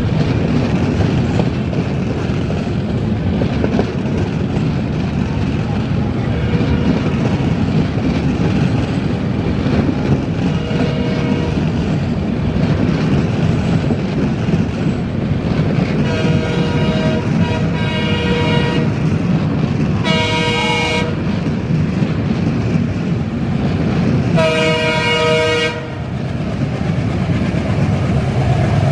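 Diesel-hauled express train approaching at speed, its engine and wheels giving a steady heavy rumble, with the locomotive's multi-tone horn sounded several times; the longest blast comes a little past halfway, followed by two shorter ones.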